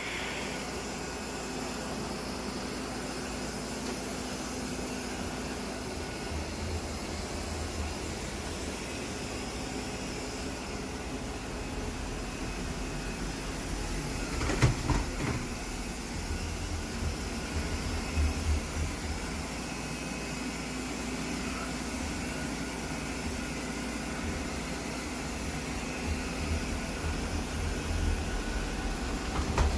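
Robot vacuum cleaner running, a steady whir from its suction motor and brushes, with a few short knocks about halfway through.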